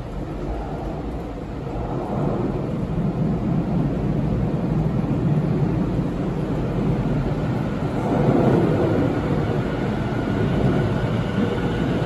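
Tobu 50070-series electric train approaching through the subway tunnel and running into the underground platform. Its wheels rumble on the rails, building from about two seconds in and loudest in the last few seconds.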